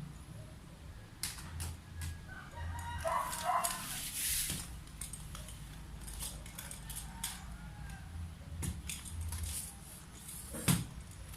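A few short animal calls about two to three seconds in, amid scattered clicks and rattles of a metal stand being handled and assembled.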